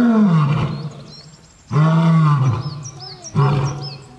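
Male lion roaring: a series of loud, deep calls, each about a second long, three in a row with the last one shorter.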